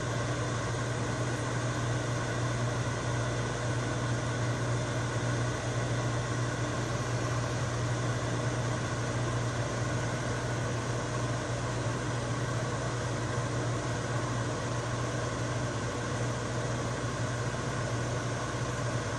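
Microwave oven running: a steady low hum with the even rush of its fan.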